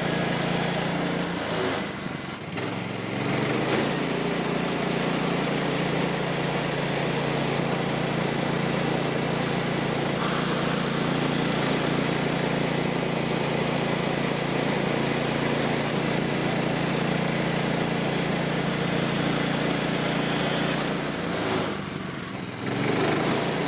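Small gasoline engine of a Woodland Mills portable band sawmill running steadily while the mill resaws a red oak post. The sound dips briefly about two seconds in and again near the end.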